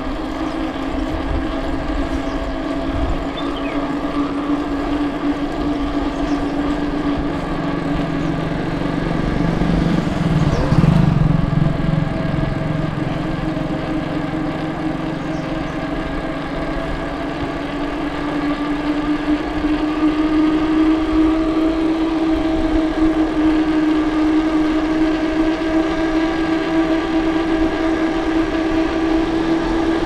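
A motor running steadily with a humming tone, its pitch slowly creeping up through the second half. A brief louder swell comes about ten to eleven seconds in.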